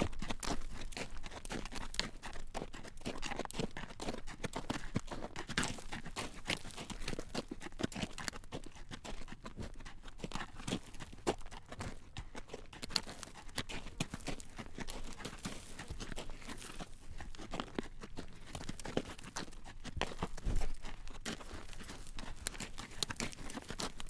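Horse's hooves clacking at a walk on a road as it draws a carriage, a steady run of hoof strikes, with one dull thump near the end.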